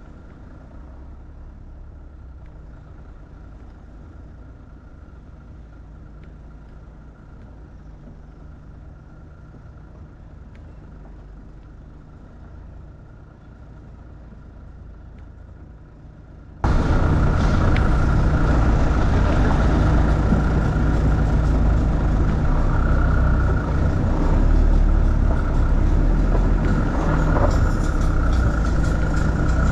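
Engine and road noise of a vehicle driving slowly, a steady low rumble. About seventeen seconds in it jumps suddenly to a much louder, fuller running noise that holds steady.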